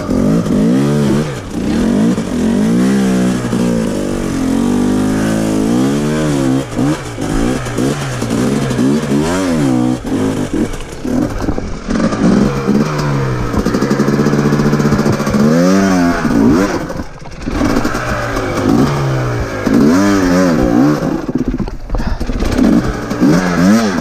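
KTM enduro dirt bike engine revved up and down in repeated throttle blips, under load as it claws up a rocky step. The engine note dips briefly about two-thirds of the way through.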